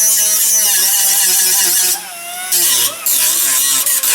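A power tool running loud with a hissing edge and a wavering pitch. It cuts out briefly about two seconds in and again just before three seconds.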